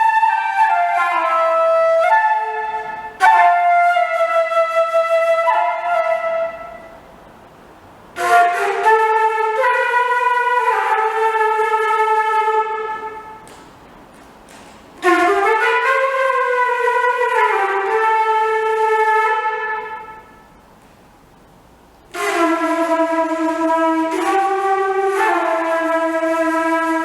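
Slow wind-instrument melody played in four long phrases with short pauses between them. Some notes slide in pitch, and at times a second, lower line sounds beneath the melody.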